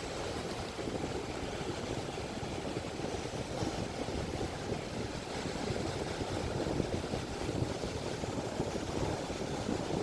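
Ocean surf washing onto a beach: a steady, unbroken noise heavy in the low end, with no separate breaks standing out.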